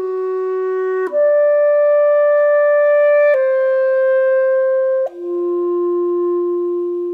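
German-system B♭ clarinet with a Selmer Focus mouthpiece playing a slow phrase of four held notes: a low note, a step up to a higher one, a step down, then a long low note held out.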